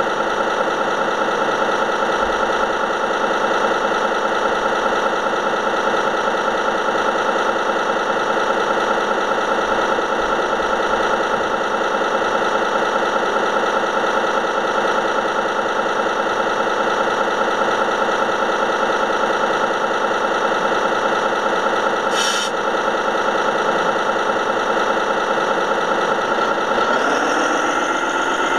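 Radio-controlled model truck's sound module playing a steady diesel idle. A brief click comes about 22 s in, and near the end the engine sound rises and falls in pitch a couple of times.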